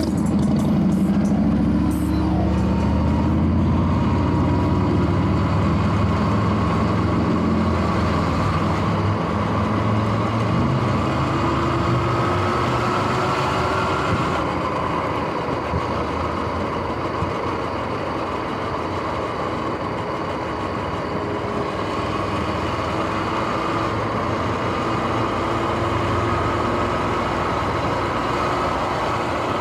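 Sur-Ron X electric dirt bike riding on pavement: a thin motor whine slowly rises and falls in pitch with speed over a steady rush of road and wind noise. The bike's bearings are noisy.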